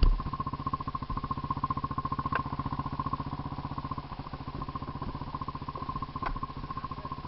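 A quad ATV's engine idling steadily with a rapid, even pulse. A sharp knock comes right at the start, and two faint clicks come about two and a half and six seconds in.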